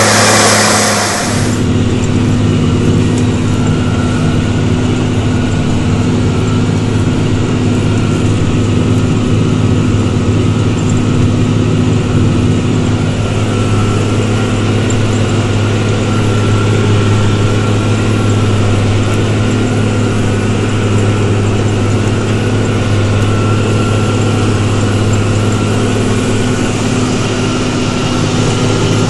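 New Holland TG285 tractor's diesel engine running steadily under ploughing load, heard as an even drone from inside the cab. About a second and a half in, a louder, rougher outdoor engine-and-wind noise gives way to the cab drone.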